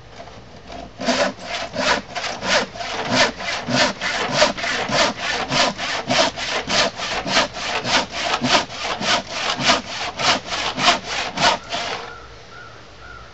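Handsaw crosscutting through a thick glued-up wooden workbench top, cutting it to final length: fast, even strokes, about three a second. They start about a second in and stop near the end.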